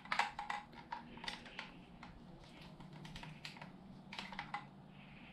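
Faint, irregular plastic clicks and creaks from a GRIPX digital hand dynamometer's handle as it is squeezed hard in one hand, bunched in the first second and a half and again about four seconds in.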